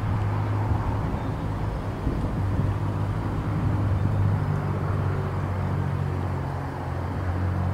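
A vehicle engine running with a steady low hum.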